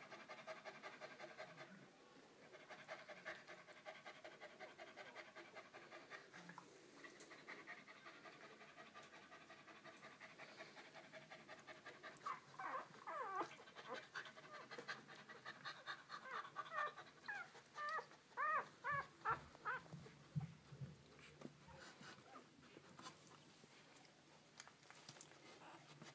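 Moyen poodle mother dog panting fast and steadily, about three breaths a second, beside her nursing newborn puppies. About halfway through, a run of short, high whimpering squeaks comes in and is the loudest part.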